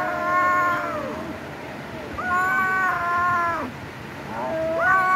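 Cat yowling in long, drawn-out meows: three calls of about a second and a half each, held at a steady pitch with about a second between them. The third starts near the end.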